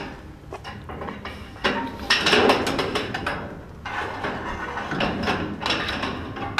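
Metal slat screen panel scraping and clattering against the metal fence rail as it is lowered and slid into place, in two rough stretches of grating metal-on-metal noise.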